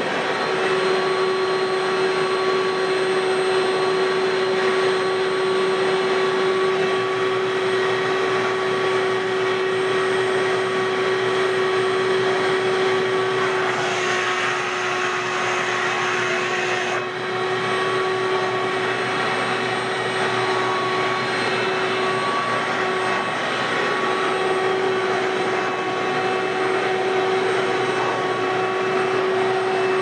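A Ridgid WD1450 wet/dry shop vacuum runs steadily with a constant whine while its floor nozzle sucks over carpet. For about three seconds midway the rush of air turns brighter and louder, then drops back suddenly.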